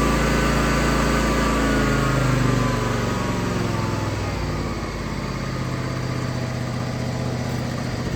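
John Deere X300 lawn tractor engine running. About three seconds in its revs fall and it gets quieter, then it settles into a steady lower-speed run.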